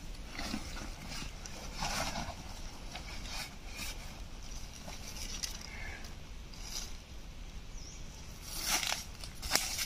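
Backpack being handled, zipped and slung on, with irregular rustling and scraping. Footsteps in dry leaf litter near the end make the loudest sounds.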